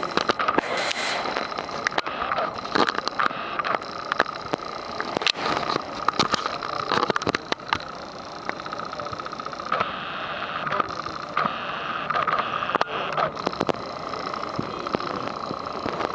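Indistinct crowd chatter and general clatter of a busy exhibition hall, with many short clicks and knocks throughout.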